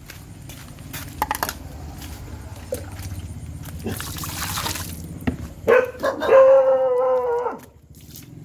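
Water poured from a plastic bag splashes into a metal bowl about four seconds in. Then a dog gives one long whine lasting about two seconds, the loudest sound.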